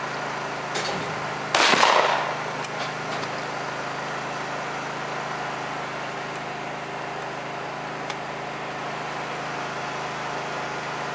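A single shotgun shot at a skeet clay about a second and a half in, its echo trailing off briefly, over a steady background hum.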